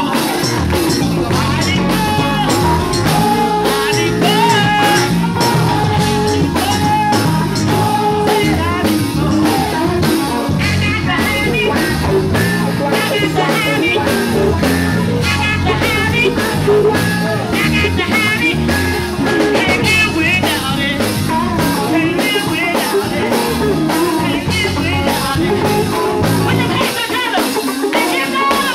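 Live gospel music with a fast, steady beat, about three strokes a second, and a voice singing over the band.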